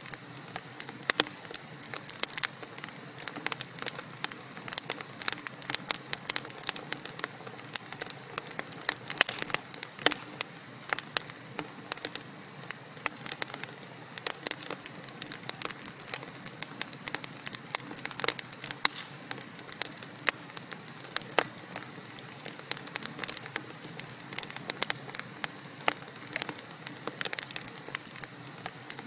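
Wood fire crackling in a fireplace: irregular sharp pops and snaps from the burning logs over a steady soft hiss.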